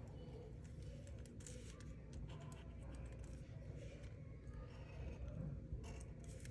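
Black felt-tip marker drawing on paper, its tip scratching faintly in short strokes as it traces over outlines, over a low steady hum.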